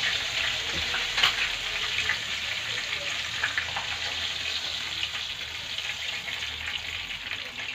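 Sardine pieces sizzling and crackling as they fry in a pan of hot oil, with a light click about a second in.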